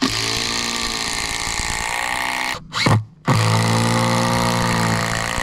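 Cordless drill running in two steady runs of about two and a half seconds each, driving fixings into the trunk to secure the cut-out door back over the hollow; its pitch sags a little partway through the first run as it works under load. A short separate sound falls in the gap between the runs.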